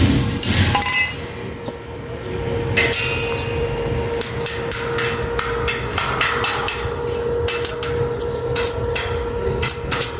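A hammer striking metal in a long run of sharp, uneven blows, several a second at times, each with a short metallic ring. A steady hum runs underneath.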